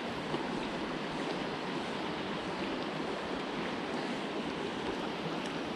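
Steady rush of a flowing river rippling past.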